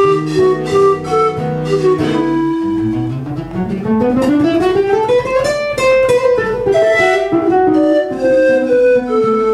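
Instrumental music led by guitar playing a melody. In the middle, a fast rising run of notes climbs in pitch, then the melody goes on with held notes.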